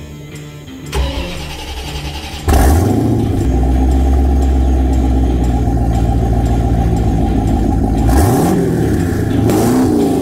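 1989 Chevrolet Corvette Callaway Twin Turbo's 5.7-litre V8 being started: cranking from about a second in, then catching loudly about two and a half seconds in and settling into a steady idle. Near the end it is revved briefly twice.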